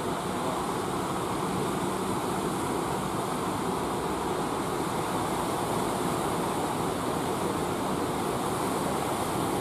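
Waves breaking on a beach: a steady wash of surf noise.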